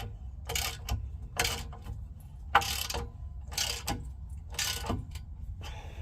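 A socket ratchet wrench is swung back and forth in about six strokes, roughly one a second, each stroke a short run of pawl clicks. It is tightening the skid-plate bolts toward about 15 pounds of torque.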